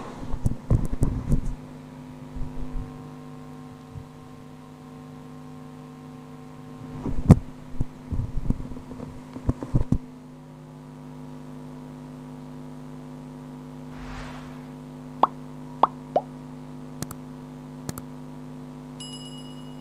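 Steady electrical hum, with clusters of irregular knocks and clicks in the first half and a few sharp single clicks later on.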